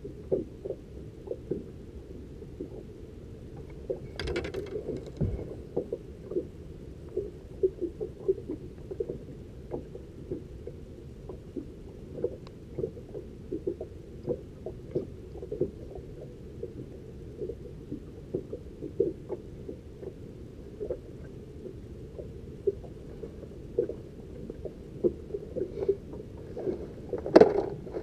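Water lapping against the hull of a small fishing boat: irregular light slaps over a muffled low rumble, with a brief splash near the end.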